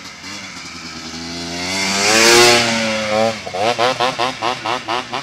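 Quad ATV engine revving hard as it approaches and passes close, loudest about two seconds in, its pitch dropping as it goes by. Then, climbing a steep sand hill under load, the engine note surges and falls in quick pulses about three times a second.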